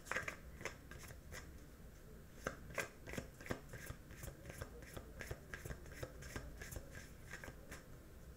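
A deck of tarot cards being shuffled by hand off-picture: faint, irregular light clicks and snaps of card against card.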